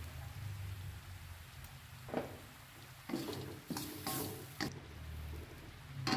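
Wooden spatula scraping and knocking against a steel wok as a dry meat-and-egg filling is stirred: a handful of short scrapes, the loudest near the end, over a low steady hum.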